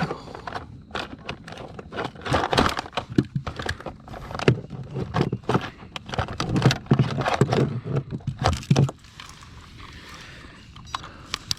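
Clattering and rattling from handling a landed bass and a fish scale in a kayak: fast knocks, clicks and rustles for about nine seconds, then quieter.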